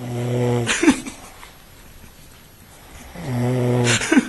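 A heavily drunk man snoring loudly in his sleep: two long snores about three seconds apart, each held on one low pitch and ending with a quick rise in pitch.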